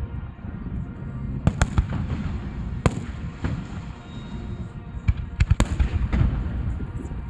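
Aerial fireworks bursting: a continuous low rumble of shell bursts, broken by sharp cracking bangs in a cluster about one and a half seconds in, another near three seconds and several more around five seconds in.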